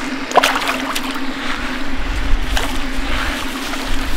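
Hooked blue catfish splashing at the water's surface on a tight line, with sharp splashes about half a second in and again after two and a half seconds. A steady low hum runs underneath, and a low rumble comes in about two seconds in.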